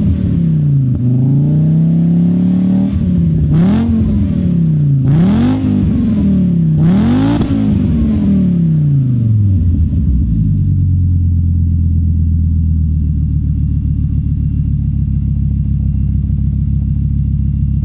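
Fiat Coupé 2.0 20V's naturally aspirated inline five-cylinder engine, heard at a straight-through exhaust with a large single tailpipe, revved up and down several times with sharp cracks near the tops of three of the revs. About ten seconds in, it drops back and settles into a steady idle.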